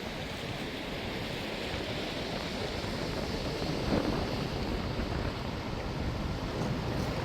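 Sea waves washing onto the shore in a steady rush, with wind buffeting the microphone as a low rumble; the surf swells a little about four seconds in.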